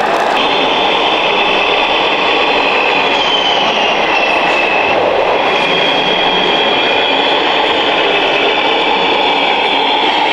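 Scale RC trucks and an RC excavator running, a steady mechanical rumble with a thin high whine over it.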